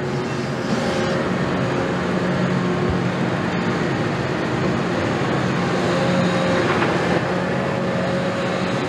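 Caterpillar 329E excavator's diesel engine running steadily as the bucket swings over the spoil, with a steady low hum.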